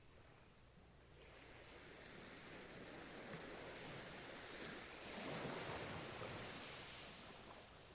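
Ocean surf: one wave's wash builds from about a second in, is loudest around five to six seconds in, and fades away near the end.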